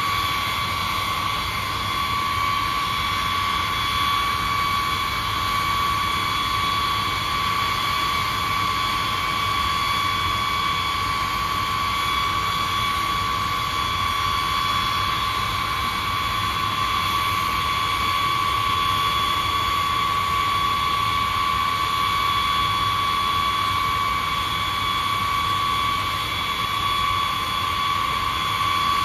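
Boeing B-52 Stratofortress's eight TF33 turbofan engines running steadily, a constant high whine over a rushing noise with no change in pitch or loudness.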